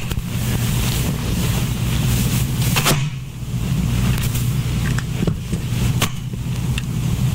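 Steady low hum of the room or sound system, with a few brief knocks and rustles as a person sits down, the clearest about three seconds in.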